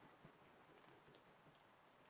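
Near silence: faint hiss with a few weak, scattered clicks.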